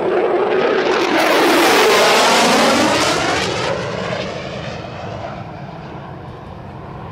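F-22 Raptor's twin turbofan jet engines roaring past in a flyby. The roar swells to its loudest about one to three seconds in, then slowly fades as the jet moves away.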